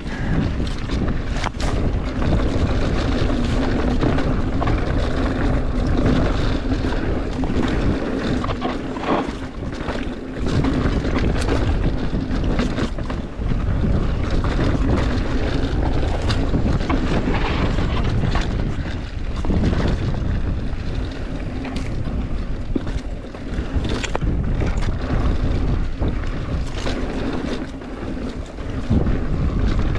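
Wind buffeting the microphone and tyre rumble from a mountain bike ridden fast down a rocky trail, with scattered knocks and rattles as the bike hits rocks.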